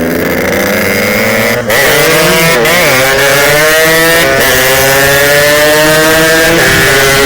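Yamaha RX-King two-stroke single-cylinder motorcycle engine under hard throttle, its buzzing pitch climbing steadily as it accelerates, with a brief drop and wobble about a second and a half in and a smaller dip near the end.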